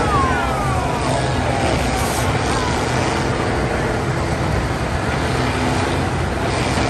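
Combine harvesters' diesel engines running hard together as the machines push and ram each other in a demolition derby, a steady, loud, dense engine noise.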